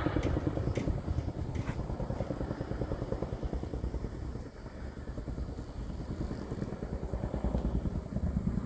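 Helicopter flying over, its rotor beating in a fast, steady thump that fades as it moves off, then picks up a little near the end.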